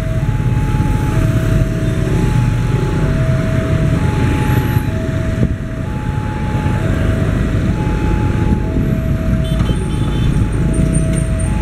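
Indonesian railway level-crossing alarm sounding a two-tone electronic warning, a higher and a lower note alternating about every half second. It warns that a train is approaching. Under it runs a steady low rumble of heavy vehicles or a train.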